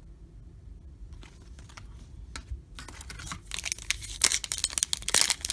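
Wrapper of a trading-card pack being torn open and crinkled, starting about three seconds in after a quiet stretch with a few light clicks, and growing louder near the end.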